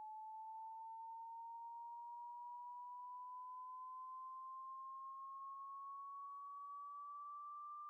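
Pure sine-wave test tone from a frequency generator, rising slowly and evenly in pitch from about 850 Hz to about 1.2 kHz: part of a 20 Hz to 5 kHz hearing-test sweep.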